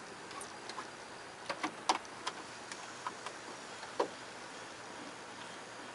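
Scattered sharp clicks and taps, several about one and a half to two and a half seconds in and one more near four seconds, from hands repositioning fabric and parts at a Singer electronic sewing machine while its motor is not running.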